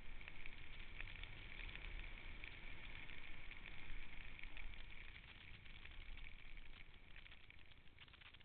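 Steady scraping hiss of sliding downhill over snow, with low wind rumble on the microphone; it grows quieter near the end.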